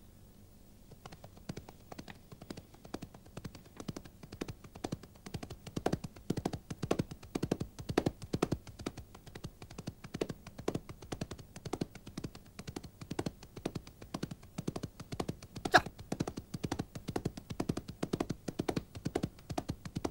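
Horse hooves galloping on the ground, several uneven strikes a second, starting about a second in and growing louder toward the middle. A single sharp crack stands out about three-quarters through.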